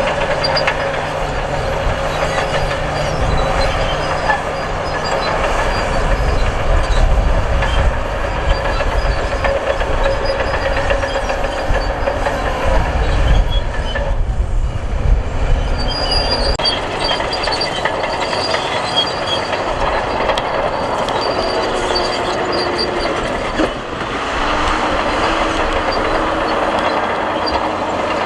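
Crawler bulldozer at work: its steel tracks clatter and squeal over a steady engine note. The low rumble grows heavier for several seconds in the middle.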